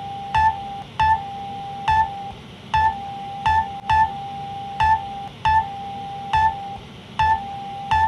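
Electronic emergency alert alarm presented as El Salvador's: a steady mid-pitched tone, with short breaks, overlaid by short sharp clicking beeps that come about once or twice a second at uneven spacing.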